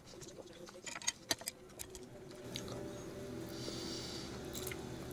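A few sharp clicks and taps, then a steady low electrical hum sets in about two and a half seconds in.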